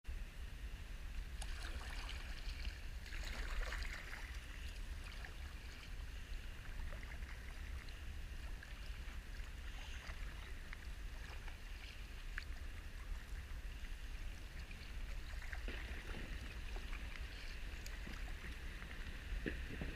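Gentle water lapping and trickling around a sea kayak, with a few soft splashes about a second in, near four seconds and again past the middle, over a steady low rumble.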